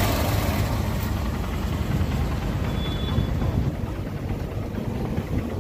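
Honda Unicorn motorcycle's single-cylinder engine idling steadily, freshly flushed and refilled with synthetic oil; the owner says its sound has changed.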